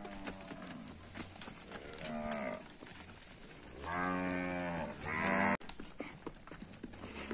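Zebu cattle mooing while being driven along: a short call about two seconds in, then a loud, long moo about four seconds in, followed by another that cuts off suddenly.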